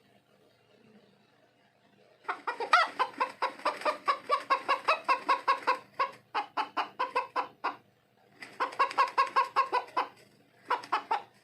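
Chicken clucking rapidly, about four clucks a second, starting about two seconds in and coming in three runs with short breaks between them.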